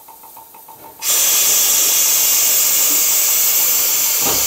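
USATC S160 2-8-0 steam locomotive blowing off steam: a loud, steady hiss that starts suddenly about a second in, with a brief low thump near the end.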